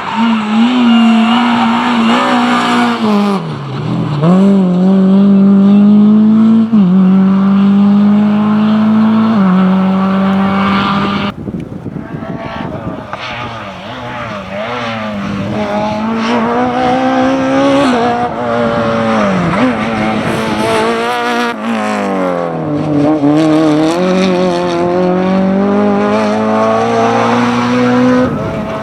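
Rally car engine running hard at high revs, its pitch stepping down at each gear change and climbing again. About eleven seconds in the throttle is lifted abruptly before the engine picks up again.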